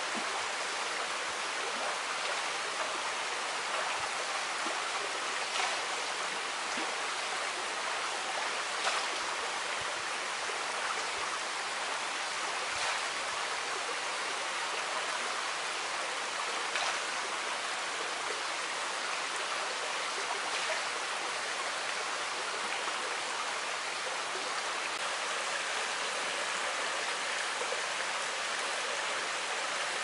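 Steady rush of waterfall water running into a rocky pool, with a few brief louder splashes standing out.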